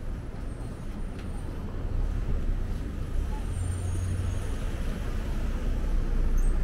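City street traffic: a steady low rumble of motor vehicles, loudest about two to four seconds in, with a few faint high-pitched squeals.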